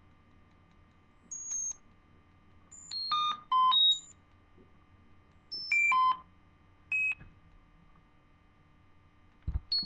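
Short pure-tone beeps from a dog-whistle app on a handheld device, jumping between low and very high pitches as its frequency is moved up and down. They come in about five brief clusters with pauses in between.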